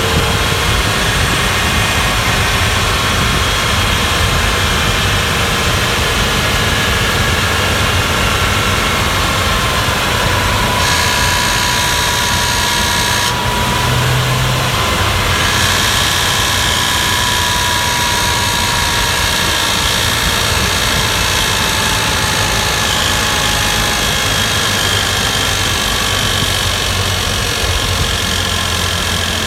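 Porsche Boxster 986 3.2 S flat-six engine running steadily, its tone drifting slowly downward in places.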